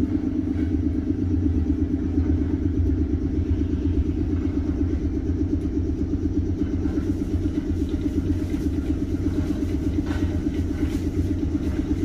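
Under-floor machinery of a JR 719 series 5000 electric train running with a steady, fast-pulsing low rumble while the train stands with its doors open.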